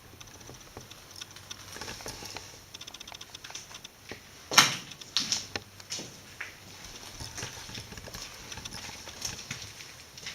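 Scattered clicks and knocks on hard surfaces, with a run of quick ticks, one sharp loud knock about four and a half seconds in, and a few lighter knocks after it.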